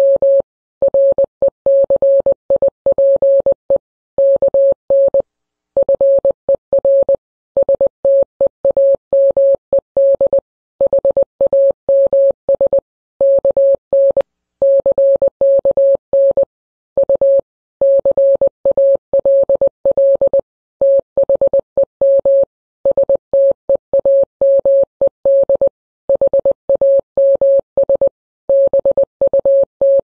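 Morse code beeps: a single steady mid-pitched tone keyed on and off in rapid dots and dashes, broken by short pauses between groups.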